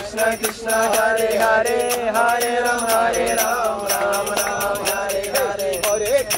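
Voices chanting a Hindu devotional kirtan, sung as a held, gliding melody over a steady beat of sharp strikes.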